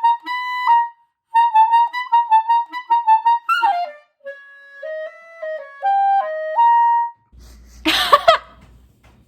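Solo clarinet playing a short melody: held notes, a quick run of notes, a downward slide, then lower notes ending on a held note about seven seconds in. Just after, a brief loud burst of noise over a low hum.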